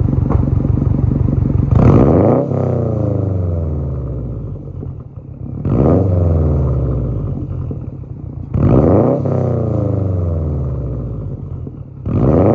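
2020 Subaru WRX STI's turbocharged 2.5-litre boxer four, breathing through a Tomei Expreme single-exit cat-back exhaust with a deep rumble. It idles, then is revved four times, each rev climbing quickly and falling slowly back toward idle.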